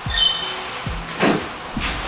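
Background music with a steady low drum beat.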